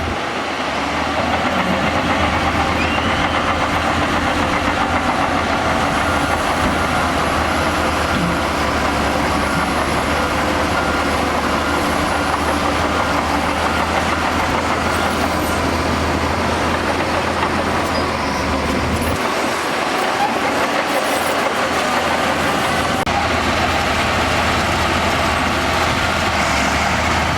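Heavy diesel earthmoving machinery, such as a bulldozer, running steadily at work, with a low engine hum under a dense mechanical noise. The deepest part of the engine sound drops away about two-thirds of the way through.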